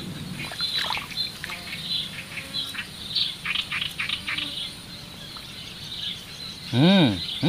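Swamp ambience: insects and small birds calling, with many short high chirps. Near the end comes one brief, louder, voice-like call that rises and falls in pitch.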